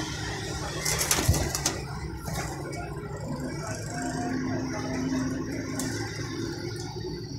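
Teddy high-flyer pigeons cooing in long low drawn-out notes, with a short rustle and a few clicks about a second in.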